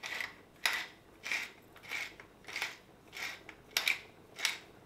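Hand-twisted pepper mill grinding black peppercorns: a short crunchy rasp with each twist, about eight evenly spaced twists, roughly three every two seconds.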